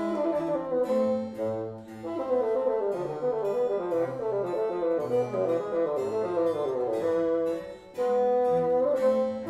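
Background instrumental music, several instruments playing a melody together, with a brief drop about eight seconds in before louder held notes.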